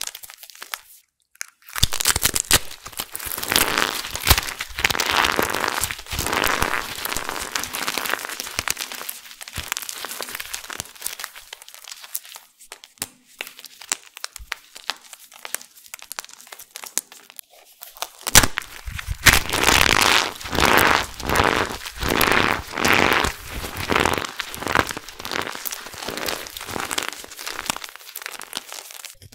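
Hands crushing and crumbling dried black soap pieces coated in starch: dense crunching and crackling, softer for a stretch in the middle, then a run of rhythmic squeezes, each one a loud crunch.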